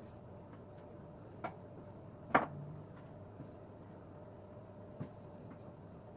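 A few light knocks or clicks over a faint steady hum. The loudest comes about two and a half seconds in.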